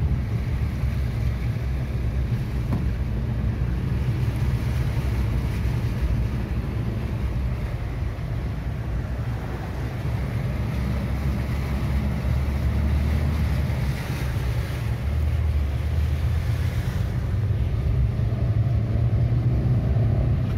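Car driving through floodwater, heard from inside the cabin: a steady low engine and road rumble with water swishing under the tyres. Near the end the engine rises in pitch as the car speeds up.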